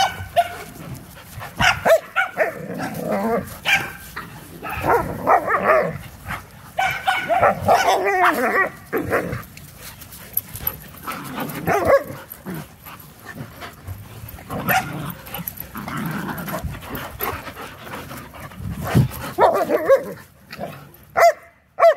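Puppies barking during rough play, in short irregular bursts with brief lulls between.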